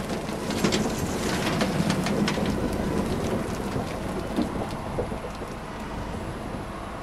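Potatoes tumbling out of a Grimme potato harvester's raised bunker onto the load below: a rain-like rattle full of scattered knocks, over the steady low running of the tractor and harvester. The rattle eases off over the last couple of seconds.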